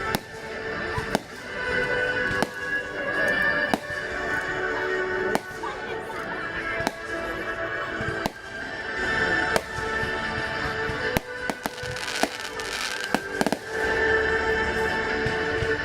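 Fireworks going off: irregular sharp bangs and crackles of shells bursting, over music playing throughout.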